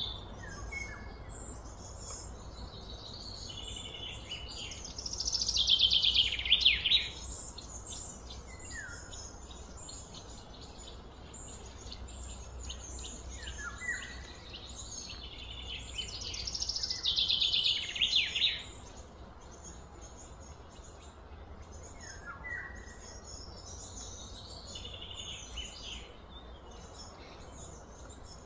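Birds calling: short falling chirps recur every several seconds, and two louder rapid trilling phrases come about six and seventeen seconds in. A steady low hum runs underneath.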